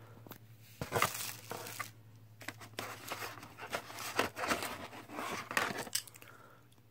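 Plastic packaging crinkling and rustling in irregular bursts as a handheld remote is pulled out of its moulded plastic tray in the box.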